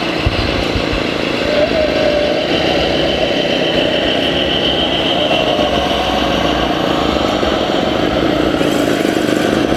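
RC scale crawler's motor and drivetrain running steadily as the truck crawls up a steep dirt pile, with a faint whine held through it.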